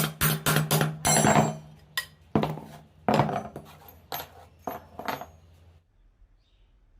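Metal knocking and clinking, a quick run of sharp ringing strikes, over a low steady hum; both stop a little before the end.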